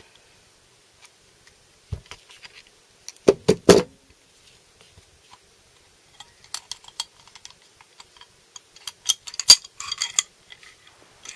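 Metal hand tools clinking and clanking against a motorcycle brake caliper and a home-made bolt puller while pulling a caliper piston: a few sharp clanks about three and a half seconds in, scattered light clicks, and a quicker run of clinks near the end.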